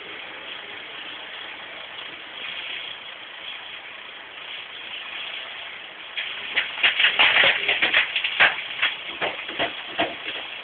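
Volvo EC290 excavator's diesel engine running steadily, heard from inside the cab. About six seconds in, a loud run of sharp clattering knocks lasts about four seconds.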